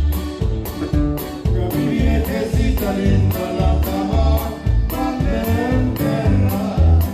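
Norteño band playing live: button accordion over bass and drums with a steady beat, with singing.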